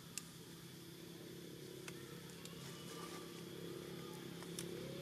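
A low, steady engine hum, likely a passing vehicle, that grows slowly louder, with a few sharp clicks.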